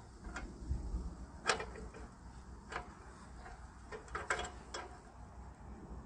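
Wrench clinking against a bolt and the car's sheet metal as it is fitted and worked: a handful of sharp, irregularly spaced metallic clicks, several close together about four seconds in, over a low wind rumble.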